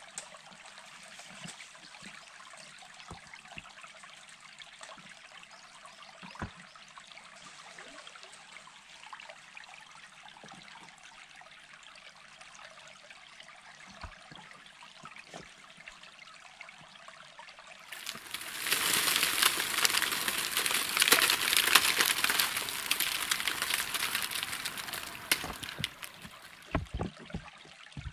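Running water of a stream: a steady faint rush and trickle, much louder for several seconds in the second half, then faint again. A few sharp knocks of stones being set on a dry-stone wall, several of them near the end.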